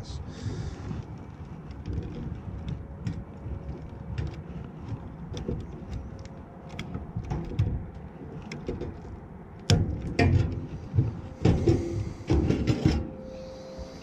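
Hands working on furnace wiring and sheet-metal parts while removing the thermal disc: scattered small clicks, rattles and scrapes, with a run of louder knocks and handling noise from about ten seconds in. A faint steady hum runs underneath.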